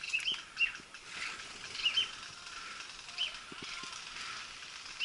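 Wild birds calling: short, high chirps, rising then falling in pitch, coming singly and in quick pairs about half a second in, near two seconds and past three seconds, over a steady high hiss of outdoor background noise.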